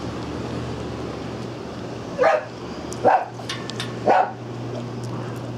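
A dog barking three short times, a little under a second apart, starting a little over two seconds in, over a steady low hum.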